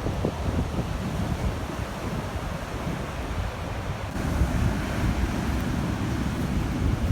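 Large storm-driven waves breaking and washing on a sandy beach, with wind buffeting the microphone as a gusty low rumble. About four seconds in, the surf gets louder as a wave comes in with a broader hiss.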